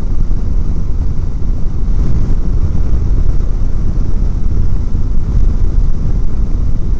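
Wind buffeting the microphone of a motorcycle-mounted camera at road speed: a loud, steady low rumble, with the motorcycle's road noise mixed in.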